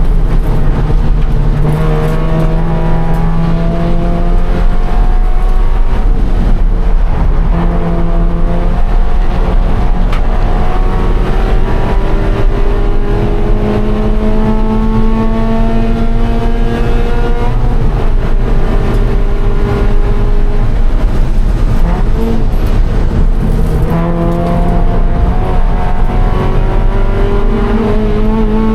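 A 2013 Scion FR-S's flat-four engine under hard acceleration on a race track. Its note climbs through the revs, drops back at each shift or braking point, then climbs again, over heavy road and wind noise.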